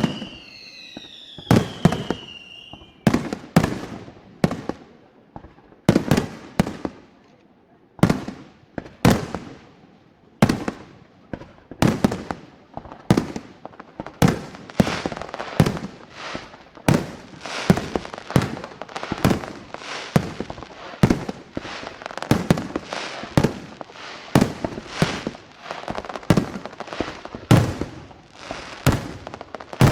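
Fireworks going off: a string of sharp bangs, each trailing off in a short rumble. They come about a second apart at first, then thicker and faster from about halfway in, into near-continuous banging and crackling.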